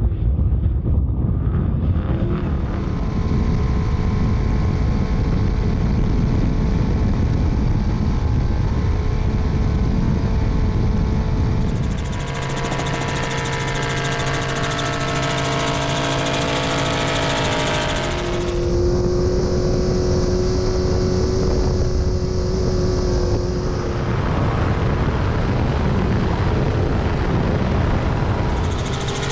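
Trophy truck engine running hard at speed, a steady engine note over heavy low rumble. The sound changes abruptly several times, about every five or six seconds.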